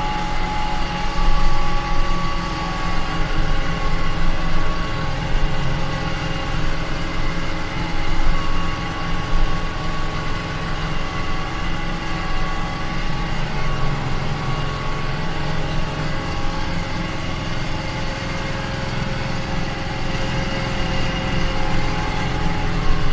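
Kubota M9540 tractor's diesel engine running steadily, with a low rumble and a thin steady whine over it, swelling a little now and then.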